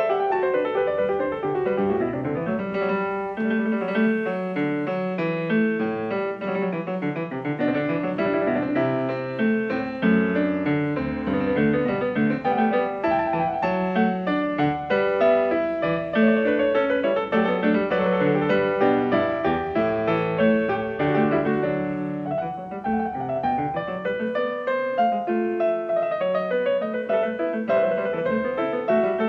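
Background piano music with a steady flow of quick notes.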